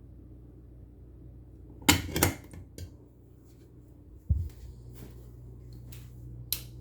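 A few sharp clicks and clacks, a close pair about two seconds in and more near the end, and one dull thump about four seconds in, over a faint low hum.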